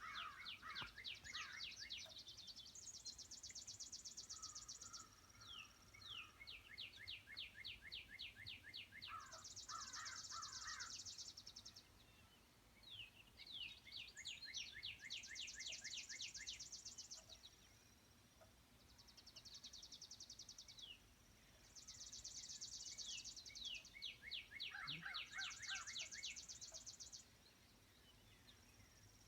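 Songbirds singing, faint, in repeated phrases every few seconds: each is a fast series of sharp down-slurred notes, followed by or overlapping a high, rapid trill.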